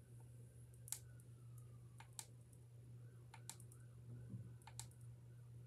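Near silence: a low steady hum with a dozen or so faint, irregular clicks and taps of small objects being handled, the sharpest about a second in.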